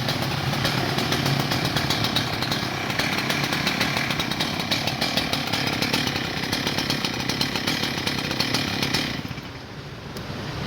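STIHL TS800 cut-off saw's 98.5 cc two-stroke engine running at high speed; about nine seconds in the throttle comes off and the engine drops to a quieter, lower speed.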